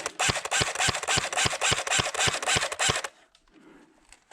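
Airsoft gun firing a long burst of about three seconds, a rapid string of shots over a whirring mechanism, then it stops abruptly.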